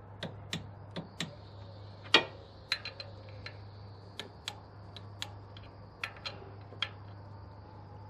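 Half-inch-drive click-type torque wrench, set to 38 N·m, being worked on engine mount bolts: sharp metallic clicks at irregular intervals, the loudest about two seconds in.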